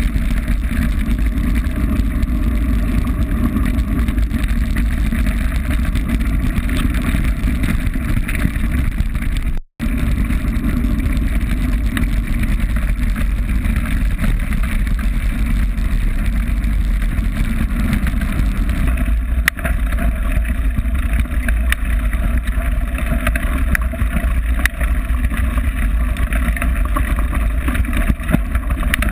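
Steady rumble of wind buffeting a bike-mounted camera's microphone, together with mountain bike tyres rolling and crunching over loose gravel. The sound drops out for an instant about ten seconds in, and sharp ticks and rattles come through in the second half.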